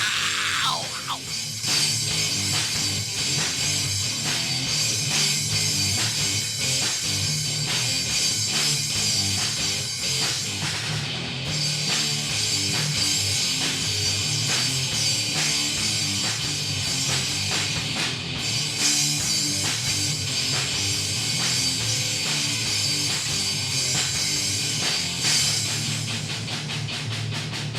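Rock band playing an instrumental passage: drum kit driving a steady beat under electric guitar, with no vocals.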